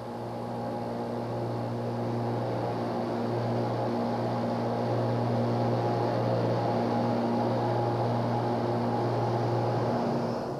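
Kaplan turbine running: a steady low machine hum with a few steady tones above it and a hiss on top. It swells up over the first couple of seconds and fades away near the end.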